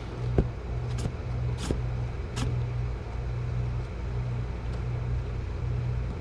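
A steady low hum, with a few short clicks and taps in the first few seconds as packing materials and the comic book are handled.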